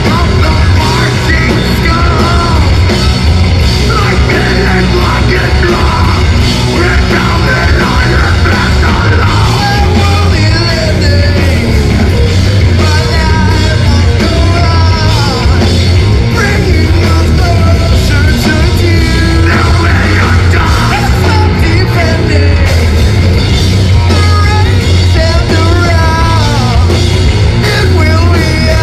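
Heavy metal band playing live at full volume: a dense, unbroken wall of distorted guitars, bass and drums.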